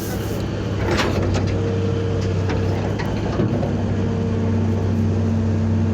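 Heavy diesel engine running with a steady low drone. A steady higher whine comes in about a second and a half in, and a second, lower tone joins near the four-second mark.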